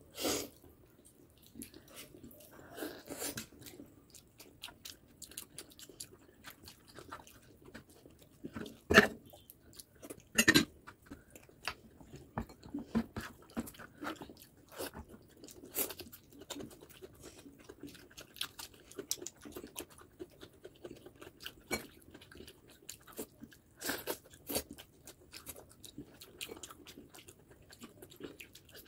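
Close-miked chewing and biting through a meal of rice, curry, salad and papad: wet mouth sounds with frequent crunches and clicks. The loudest are a few sharp clicks right at the start and about 9 and 10.5 seconds in.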